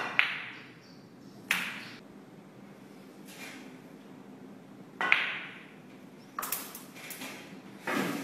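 Snooker balls clacking: sharp clicks of the cue tip striking the cue ball and of the cue ball hitting the object balls. There are about six clicks, a pair at the start and the rest a second or more apart, each with a brief ring.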